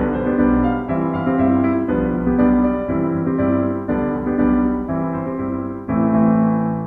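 Background music: piano or electric-piano chords played in a steady pattern, changing about every second.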